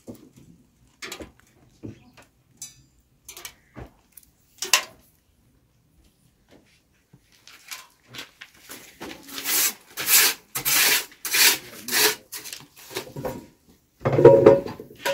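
Firewood being handled and loaded into a wood-fired bread oven. First come a few scattered knocks of sticks, then a quick run of rough scraping and rubbing strokes of wood. Near the end a cat meows loudly.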